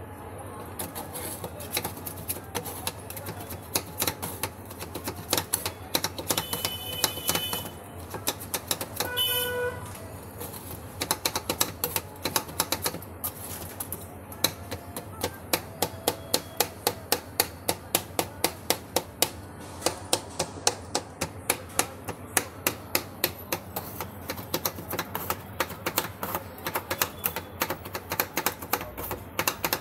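Metal spatulas chopping and tapping on a steel ice-cream freezing plate as the base and mix-ins are broken up for rolled ice cream: a rapid, steady run of sharp clacks.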